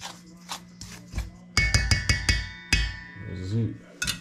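Soft rustling of hands working dry fish-fry batter, then a stainless steel mixing bowl knocked several times in quick succession, ringing after each knock, and one more knock near the end.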